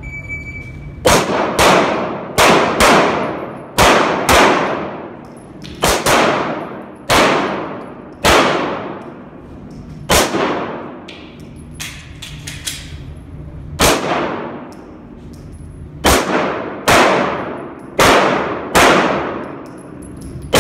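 Shot timer's start beep, then a string of handgun shots fired mostly in quick pairs, each shot ringing and echoing off the concrete of the indoor range.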